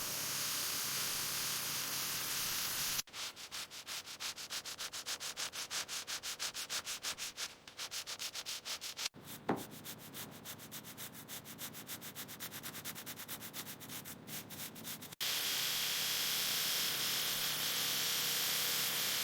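Hand sanding: rapid back-and-forth rubbing strokes, about five a second, with a short squeak about halfway, set between stretches of steady hiss at the start and near the end.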